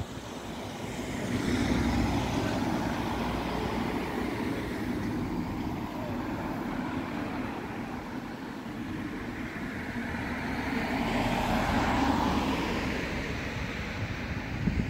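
Cars passing on a street: tyre and engine noise that swells and fades twice, once about two seconds in and again around eleven to thirteen seconds.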